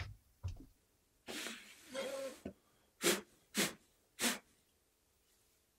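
A person blowing out three candles one after another: three short, sharp puffs of breath about half a second apart, after a longer breathy rush of air.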